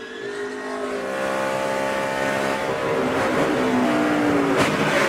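NASCAR Sprint Cup stock car's pushrod V8 running at race speed, its pitch shifting a little, with a short sharp crack about four and a half seconds in.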